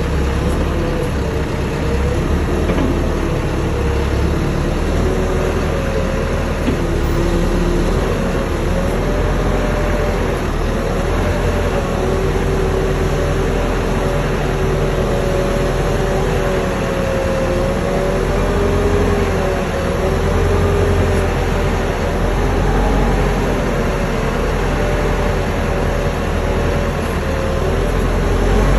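Telehandler's diesel engine running under the operator's seat as the machine works, a steady low rumble with a whine that rises and falls in pitch.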